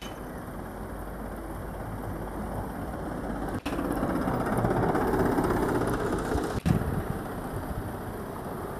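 Isuzu Elf cab-chassis light truck's diesel engine and tyres as it drives past, growing louder to a peak about halfway through and easing off toward the end. The sound breaks off abruptly twice, at edit cuts.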